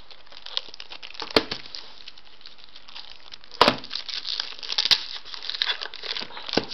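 Plastic shrink-wrap film on a DVD box crinkling as fingers rub and pick at it, with a few sharp clicks and snaps. The loudest snaps come about one and a half and three and a half seconds in.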